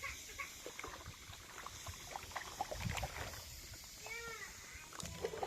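A single short animal call about four seconds in, rising then falling in pitch, over faint scattered knocks and taps.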